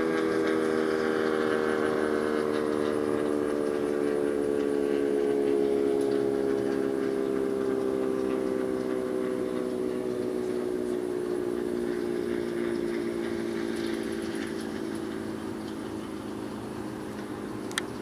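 Sentry 10v2t dual-tone outdoor warning siren winding down after its Alert signal: its chord of tones slowly sinks in pitch and fades.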